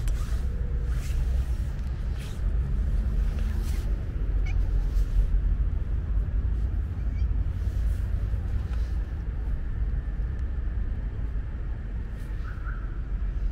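A steady low rumble with scattered short rustles and clicks as a calico cat pokes its head into an open backpack.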